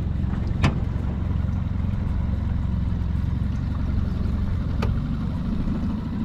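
A boat's motor running steadily with a low hum, easing off slightly about five seconds in. A sharp click sounds just under a second in.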